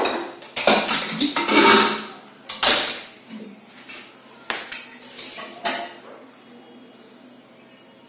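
Stainless-steel pots, a pressure cooker and utensils clanking and clinking as they are handled at a kitchen counter and stove. There are several sharp knocks over the first six seconds, then the sound dies down.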